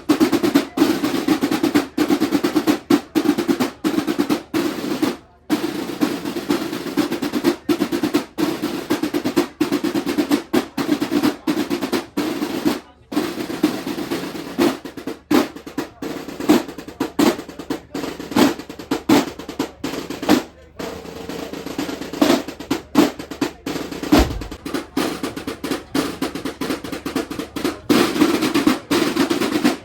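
Snare drums playing fast, sustained rolls with many short breaks.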